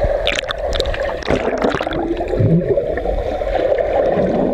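Water rushing and sloshing close to the microphone, with scattered short splashes.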